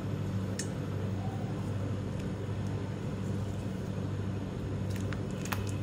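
Steady low hum with a few faint light clicks, a couple of them near the end, as cut turnip slices are tipped into a pot of hot water on a gas stove and moved with a spatula.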